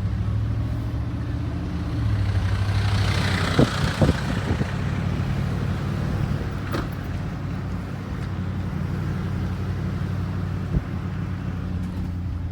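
Car engine running with road noise while driving. The engine note steps up about two seconds in, with a passing hiss and a couple of sharp knocks around four seconds.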